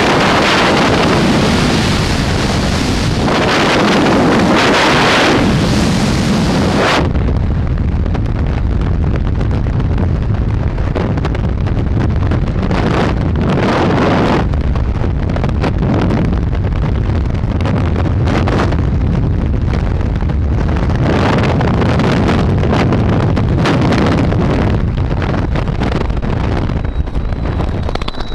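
Loud, steady rush of freefall wind buffeting a helmet-mounted camera's microphone. About seven seconds in, the hiss in the upper range cuts away suddenly, leaving a duller roar.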